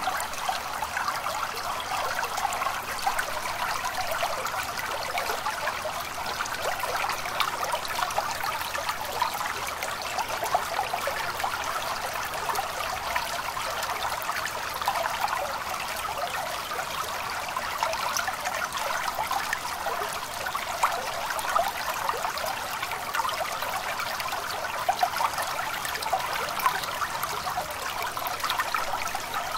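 A small stream babbling and trickling steadily over stones, with many small splashes on a continuous rush of water.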